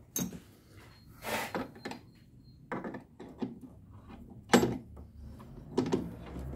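Metal hand tools clinking and knocking as a socket and extension are picked up and fitted to a socket wrench to tighten a bonnet gas-strut mounting stud: separate sharp clicks and short scrapes, the loudest a sharp knock about two-thirds through.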